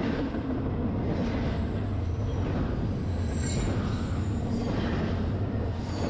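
Long freight train on the curving Tehachapi Loop: a steady low rumble of diesel locomotives and rolling cars, with brief higher-pitched squeals from the wheels a few seconds in.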